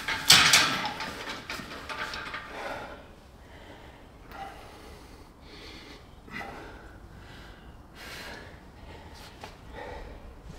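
A man breathing hard from exertion during heavy reverse-grip cable pulldowns. There is a loud forceful breath about half a second in, then a short sharp breath every second or two.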